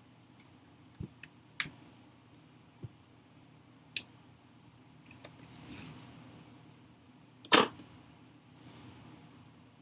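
Scattered small hard clicks and taps of laptop parts and tools being handled during reassembly, with brief rustles between; the loudest is a sharp knock about seven and a half seconds in.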